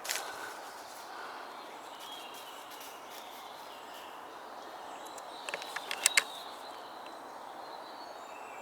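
Quiet countryside background with faint bird calls, broken about five and a half seconds in by a quick run of sharp clicks and taps.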